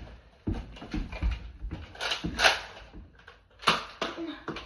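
Nerf foam-dart blasters being primed and fired, heard as about five short, uneven puffing and scraping noises.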